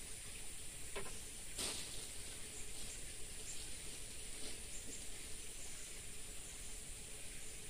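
Steady high-pitched buzz of an insect chorus in the pond-side vegetation over a faint outdoor hiss, with a couple of faint ticks about a second and a half in.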